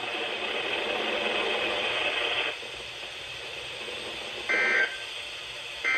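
NOAA Weather Radio broadcast through a weather radio's speaker: hissing dead air that drops quieter after a couple of seconds, then short screechy bursts of the SAME digital data tones, one about four and a half seconds in and another starting near the end. These are the end-of-message code that closes the required weekly test.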